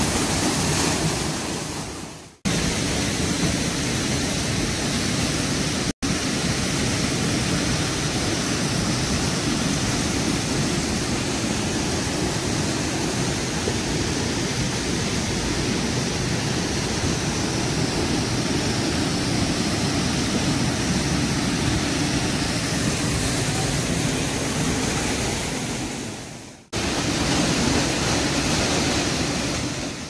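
Waterfall pouring into a rock pool: a steady, loud rush of falling and splashing water. It drops out briefly about two seconds in, for an instant at six seconds, and again near the end.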